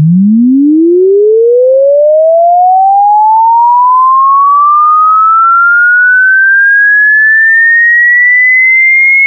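A single pure electronic tone, loud and even in level, gliding smoothly and steadily upward in pitch from low to high.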